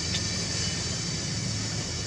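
Steady outdoor background: an even, high drone over a low rumble, with no single distinct event.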